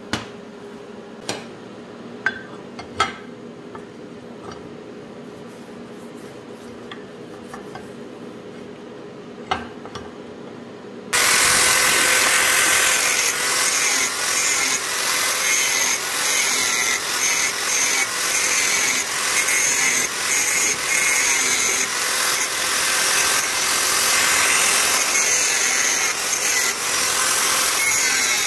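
A few sharp knocks while the aluminum part is handled, then about eleven seconds in an angle grinder starts abruptly and grinds down the weld bead on the aluminum. The grinding is loud and steady, with brief regular dips as the disc is worked across the seam.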